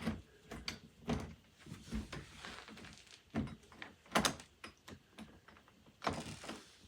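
Phillips screwdriver working the mounting screws of an interior door knob loose. Irregular small clicks and knocks of metal on metal, the loudest about four seconds in and another about six seconds in.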